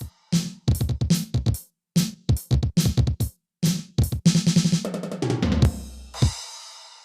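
Aroma TDX-16S electronic drum kit sounds: quick runs of bass drum, snare and tom hits broken by short pauses, ending on a cymbal crash that rings out and cuts off suddenly.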